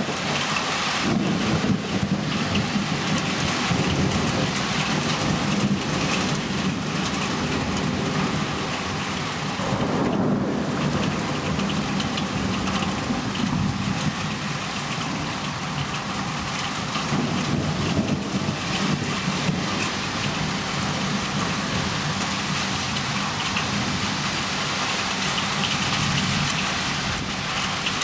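Heavy rain pouring steadily during a thunderstorm, with low rolls of thunder now and then, a heavier one about ten seconds in.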